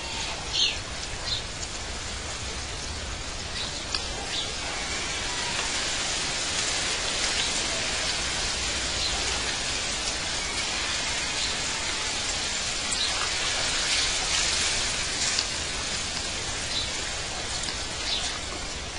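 Outdoor nature ambience: a steady hiss, like rain or rushing water, with a few short high chirps now and then.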